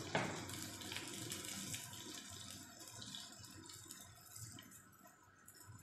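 A steady kitchen hiss that fades away over a few seconds, with a sharp click just after the start and light clicks and rustles as metal tongs set a seared chicken breast into a foil tray of breadcrumbs.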